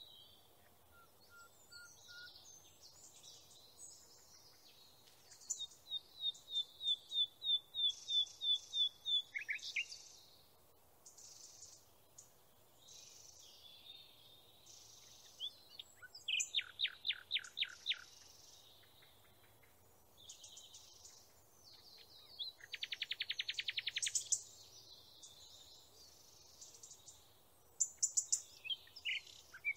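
Songbirds singing: scattered chirps, a run of about a dozen evenly repeated high notes, and later two quick trills.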